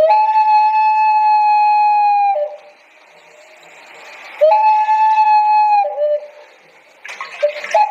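Black ceramic animal-shaped whistling vessel sounding: two long steady whistles, each dropping to a lower note as it ends. Near the end comes a rapid warbling whistle.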